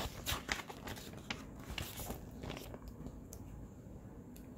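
Paper page of a picture book being turned and handled: a run of crisp rustles and small clicks for about three seconds, then quieter.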